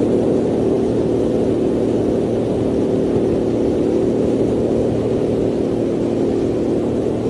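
A steady mechanical drone with a low hum that holds an even level throughout.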